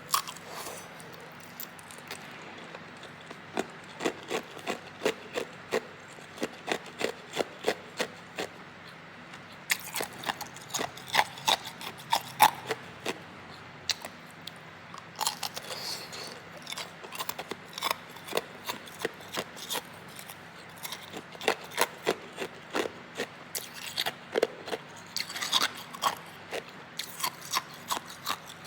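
A person biting and chewing hard ice: a run of sharp, crackly crunches, about two or three a second, with brief pauses between mouthfuls.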